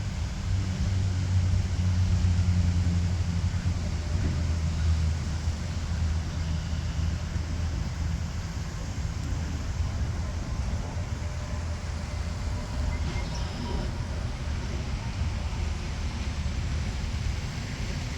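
Low rumble of a motor vehicle engine, loudest a couple of seconds in and then easing off, over faint traffic noise.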